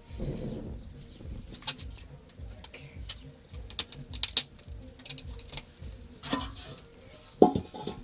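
Scattered light clicks and knocks of hands-on kitchen work while tomatoes are peeled, with a low cooing, dove-like call in the background. A louder knock comes near the end.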